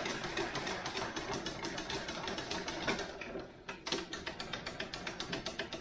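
Cleaning rod with a patch being scrubbed back and forth in a 300 Norma Magnum rifle's bore, in rapid, even strokes with a short break about three and a half seconds in.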